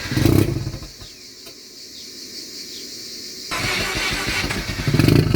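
A tuned car engine, which its owner thinks is running too lean on a new ECU tune, sputters and stalls about a second in. After a quieter pause it is cranked again from about three and a half seconds and fires up near the end. It cannot stay running.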